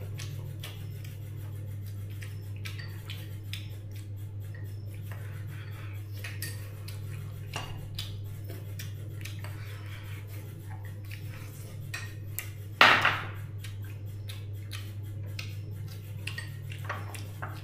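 Tableware clinking: a steady run of small light clicks of dishes and utensils, with one louder clatter about thirteen seconds in. A steady low hum runs underneath.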